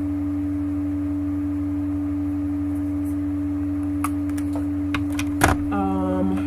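A steady, unchanging hum with a constant mid-pitched tone. Near the end come a few small clicks and one sharper click.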